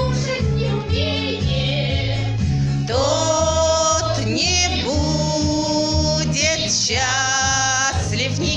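Women's amateur vocal group singing along to a backing track with a steady repeating bass beat. Long held sung notes come in about three seconds in.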